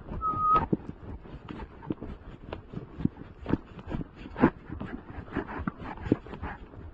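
Horse walking on a grassy path: irregular, soft hoofbeats, with a short high whistle-like tone near the start.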